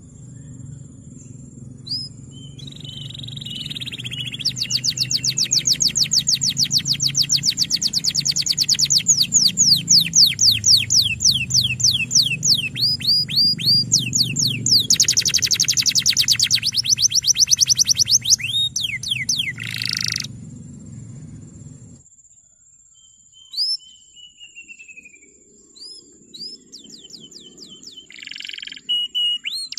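Male canary singing a long song of fast, rapidly repeated chirps and rolling trills, which grow louder and then thin out after about 20 s into a few short rising notes and a brief warble.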